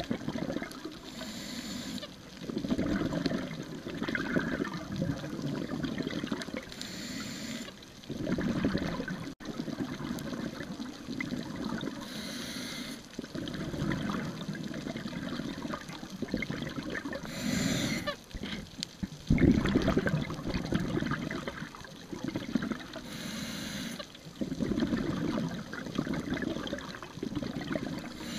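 Scuba diver breathing through a regulator underwater: a short hiss on each inhale, about every five to six seconds, each followed by a longer rush of gurgling exhaust bubbles.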